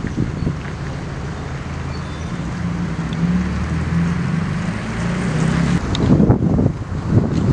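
Street traffic: the steady hum of a car engine passing, then from about six seconds in, irregular gusts of wind buffeting the microphone.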